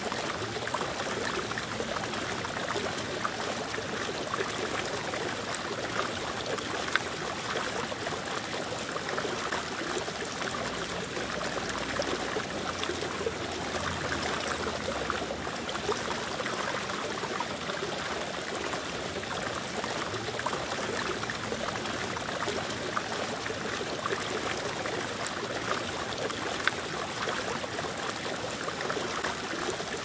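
Fast river water rushing over rocks: a steady, even rush of white water.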